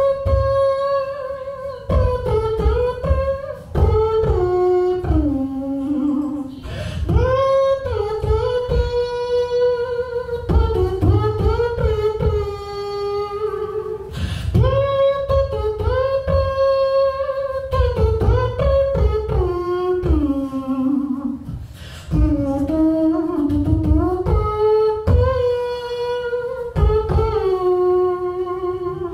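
A beatboxer performing solo into a handheld microphone over a PA: a hummed melody in long held notes that glide and step downward, layered over low kick-drum beats made with the mouth.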